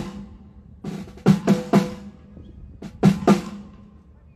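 Snare drum of a drum kit struck in sparse hits and quick runs of two or three, each hit sharp with a short ringing tone, as it is sounded for a sound check.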